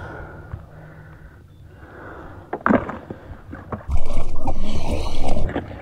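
Water sloshing and gurgling around a kayak, with a few short knocks, then a louder rush of noise from about four seconds in that lasts over a second.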